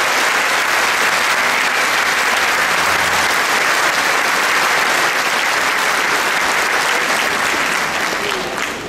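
Large congregation applauding steadily, dying away near the end.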